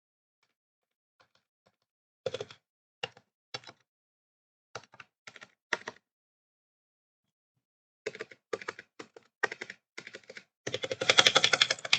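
Keys of a Razer Huntsman Mini 60% keyboard with optical linear red switches being pressed: short groups of keystrokes with pauses between them, then a fast, dense flurry of typing near the end.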